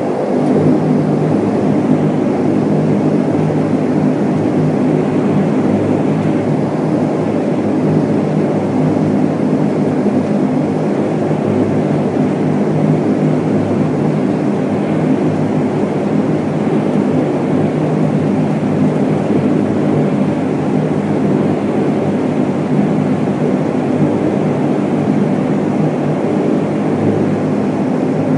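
Bombardier Dash 8 turboprop engines and propellers at takeoff power during the takeoff roll, heard inside the cabin as a loud, steady drone of even tones, over the rumble of the main-gear tyres on the runway.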